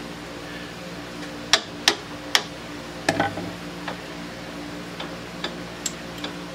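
Steel Allen key clinking against a metal lathe chuck and its mounting bolts while the bolts are loosened a partial turn at a time: four sharp clicks in the first half, then a scatter of lighter ticks, over a steady low hum.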